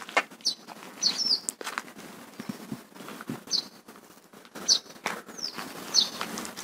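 A small bird chirping outdoors: about half a dozen short, high chirps spaced irregularly, with a few sharp clicks and knocks in between.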